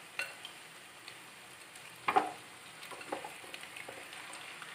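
Marinated chicken pieces frying in mustard oil with onions in a kadai, a quiet steady sizzle as they go into the hot pan. One sharp knock about two seconds in, followed by a few light ticks.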